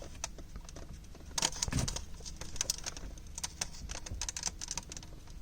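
Scattered small clicks and knocks of plastic and metal, a few louder ones about a second and a half in, as a car stereo is pried out of its dashboard slot with a flat screwdriver working its release clips.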